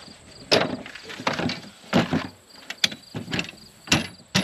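A string of sharp knocks and scuffs, roughly one every two-thirds of a second, from someone moving about and setting up a gel block target. Crickets chirp faintly and steadily in the background.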